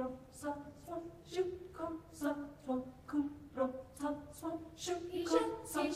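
A school choir singing a cappella in short, rhythmic syllables, about two to three notes a second with crisp consonants. The voices grow fuller near the end.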